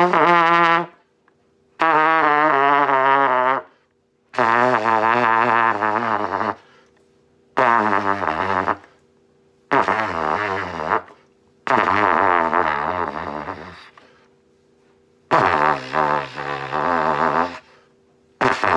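Trumpet played in its low and pedal range: about seven separate held notes with short pauses between them, their pitch wavering. The notes work down toward a double pedal C, which comes out quite sharp.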